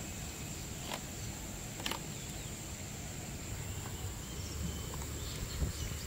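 Steady high-pitched drone of insects, over a low outdoor rumble, with two light clicks about one and two seconds in.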